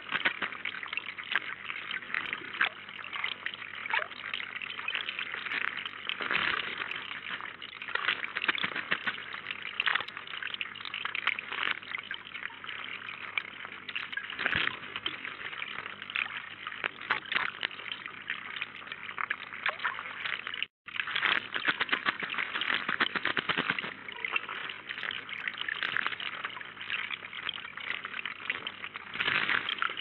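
Water running steadily in a small garden pond, with repeated small splashes from a common blackbird and house sparrows bathing in it.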